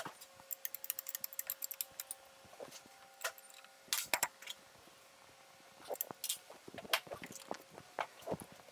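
Small metallic clicks, taps and clinks of hand work at a motorcycle's rear wheel: a wrench on the belt-tension adjuster bolts and hands moving the tyre. A quick run of small ticks comes about half a second in, followed by scattered separate knocks.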